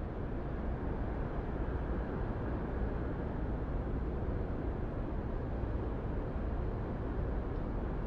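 Steady low rumble of city traffic, an even noise with no separate events standing out.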